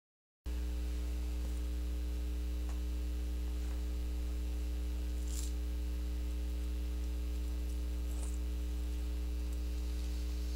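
Steady electrical mains hum, a low buzz with a stack of overtones that starts abruptly about half a second in after dead silence. A couple of faint ticks sit on top of it.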